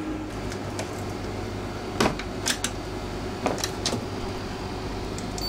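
A few short, sharp clicks and taps from hands working plastic plugs and buttons on a boat's tank-monitor and switch panel, over a steady low hum.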